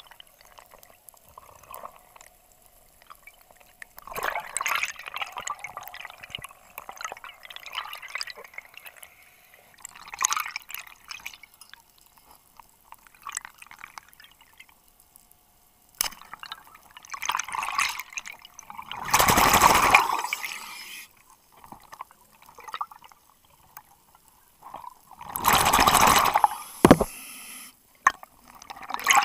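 Underwater breathing through a scuba regulator: a hissing, bubbling sound that comes and goes every few seconds as the diver inhales and exhales. The two loudest gurgling bursts of exhaust bubbles come in the last third.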